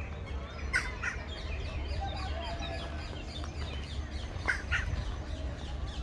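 Many birds calling and chattering at once in quick, short falling notes, with two louder, sharper calls, one about a second in and one about three-quarters of the way through, over a steady low rumble.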